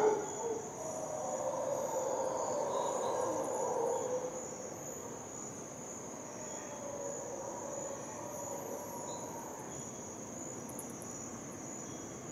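Steady high-pitched insect drone of a tropical forest before dawn. Under it, a lower chorus of distant calls is louder for the first four seconds and then fades.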